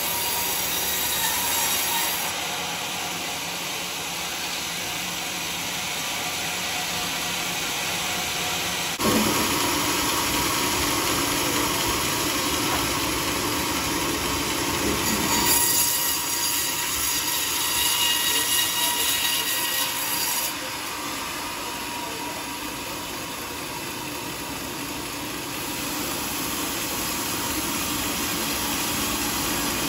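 Band sawmill running, its blade cutting lengthwise through a log with a steady, even machine noise. The sound shifts abruptly a few times, at about 9, 15 and 20 seconds in.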